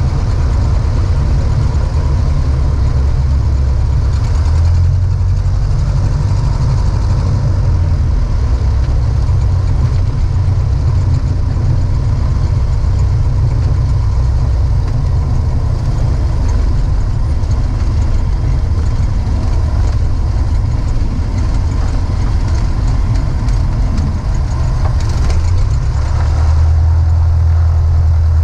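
The Cessna 150's four-cylinder air-cooled Continental O-200 engine and propeller running steadily, heard from inside the cabin as the plane taxis on the ground. The engine gets a little louder near the end.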